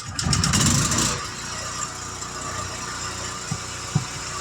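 A vehicle engine cranks and catches in the first second, then settles into a steady idle.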